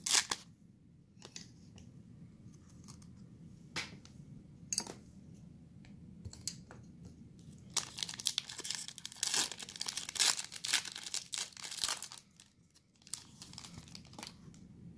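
Foil wrapper of a Panini Mosaic basketball card pack being torn open and crinkled by hand. A sharp rip comes right at the start, then scattered crackles, then about four seconds of dense crinkling and tearing just past the middle.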